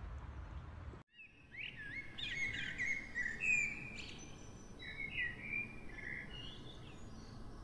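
Bird song: a run of varied sliding, whistled and chirping phrases, starting just after a sudden cut to silence about a second in.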